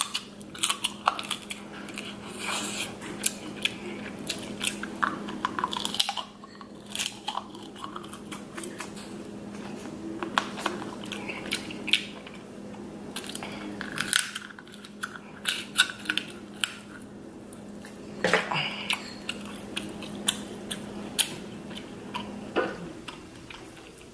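Close-miked eating: irregular sharp cracks and snaps of king crab leg shells being broken open by hand, mixed with chewing, over a steady low hum.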